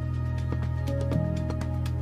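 Soft new-age-style background music with held notes over a steady low bass.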